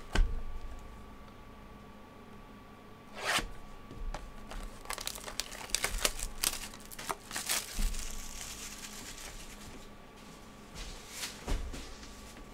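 Plastic shrink-wrap being torn and peeled off a trading-card hobby box by hand: a tear, then a run of crinkling crackles, with a few more near the end. A sharp knock just after the start, as the box is handled, is the loudest sound.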